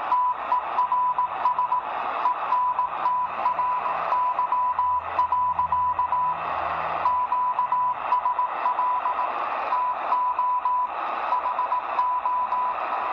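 Morse code from the ARRL station W1AW's code-practice transmission near 3581.5 kHz, received on a Degen DE1103 shortwave radio: a single tone of about 1 kHz keyed on and off in a steady, even rhythm, computer-sent, over a constant hiss of band noise.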